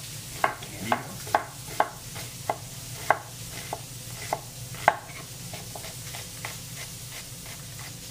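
Chef's knife slicing an onion on an end-grain wooden cutting board: a knock about every half second, heaviest in the first five seconds, then lighter, quicker cuts. A frying pan sizzles steadily underneath.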